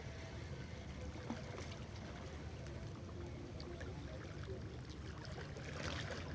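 Steady low outdoor rumble of water and wind, with scattered faint ticks and a short burst of brighter noise near the end.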